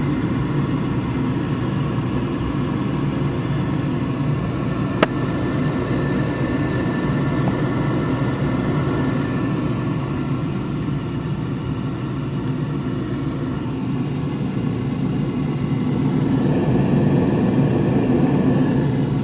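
1990s fuel oil furnace burner firing steadily after a new nozzle install: a continuous low hum of the burner motor and flame, running quietly with no erratic behaviour. A single sharp click about five seconds in, and the sound gets a little louder near the end.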